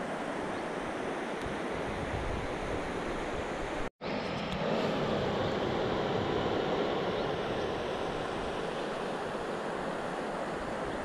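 River water running over gravel shallows: a steady rush. It cuts out for an instant about four seconds in, then carries on slightly fuller for a few seconds.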